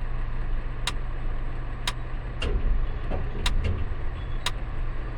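Steady low machinery hum of a tower crane at work, with sharp ticks about once a second.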